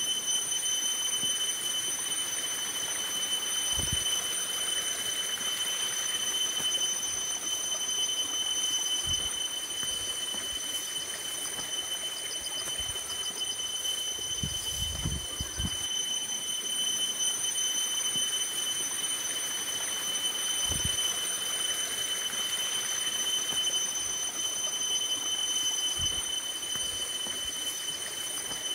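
A steady high-pitched whine, unchanging throughout, over a soft hiss like running water, with a few dull low thumps from handling near the basin.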